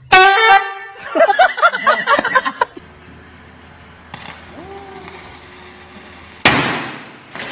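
A loud, steady horn blast, followed by a man shouting for about a second and a half. Then a faint steady hiss of arc welding, and near the end a single sharp firecracker bang.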